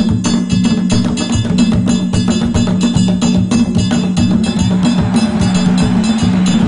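Live Afro-Caribbean percussion ensemble playing: a low drum pulse under a fast, steady pattern of sharp wooden clicks.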